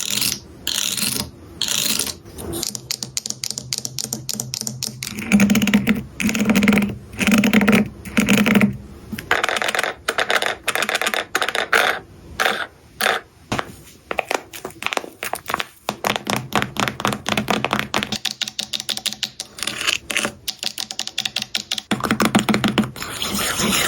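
Homemade fidget board being worked by hand: quick runs of clicking and tapping, like typing on a keyboard, with four short, louder presses about six to nine seconds in.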